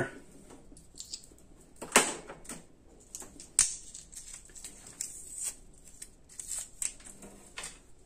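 Scattered clicks and knocks of magnet strips being set against the steel sides of a tool-cart drawer, with two sharper clacks about two and three and a half seconds in.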